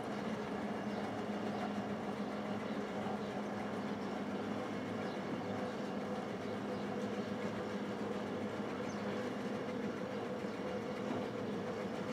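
Vintage South Australian Railways Brill Model 75 railcar creeping past at walking pace, its engine running with a steady hum.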